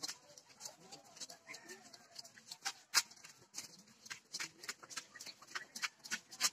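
Footsteps of several people walking in flip-flops on a wet dirt path: an irregular run of sharp slaps, a few a second, with one louder slap about three seconds in.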